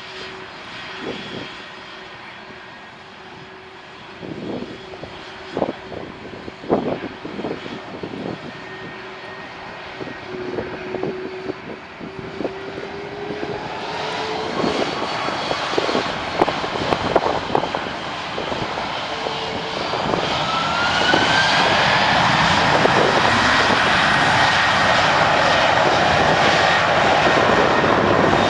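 Airbus A330-203's General Electric CF6-80E1 turbofan jet engines spooling up to takeoff thrust. A whine rises in pitch over several seconds, and from about two-thirds of the way through the engines run loud and steady at full power. There are scattered short knocks in the first half.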